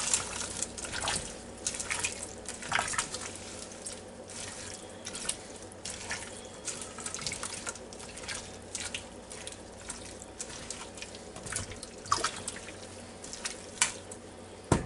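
A silicone spatula stirring chopped vegetables, chicken and broth in a pressure cooker's inner pot: wet, sloshing stirring with irregular light scrapes and clicks against the pot.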